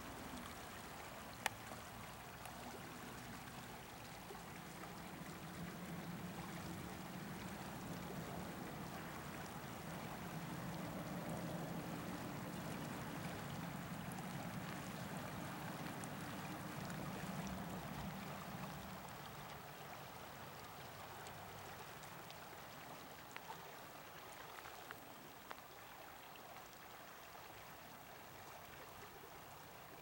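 Small mountain creek babbling and flowing steadily over stones. A low hum swells in the middle and fades away about two-thirds through, and a single sharp click sounds about a second and a half in.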